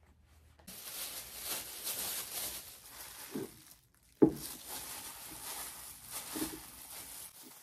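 Thin disposable plastic gloves crinkling and rustling as they are put on and as the gloved hand works in a bowl of food. One sharp knock a little past halfway.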